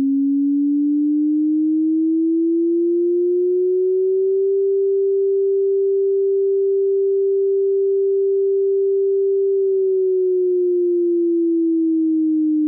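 Software-generated tsunami warning siren: a single pure tone that slowly rises in pitch over about four seconds, holds steady for about five, then slowly falls back down.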